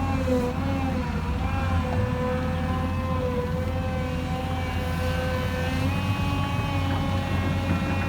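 Hyundai Robex 220-9SH excavator's diesel engine and hydraulics running under working load: a low engine rumble under a steady hydraulic whine whose pitch wavers slightly as the machine works.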